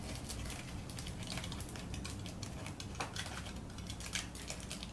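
Crinkled aluminium baking foil crackling as it is pressed into place around a tea light, an irregular run of small crisp clicks.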